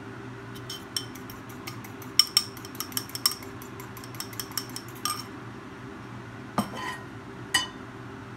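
A fast run of light clinks of a utensil against a small ceramic bowl, about six or seven a second, stopping after about five seconds, then two louder single knocks of kitchenware. A steady low hum runs underneath.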